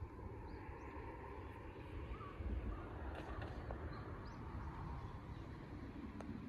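Outdoor ambience of wind rumbling unevenly on the microphone beside a small twig fire, with a few faint bird calls and the odd light crackle from the burning twigs.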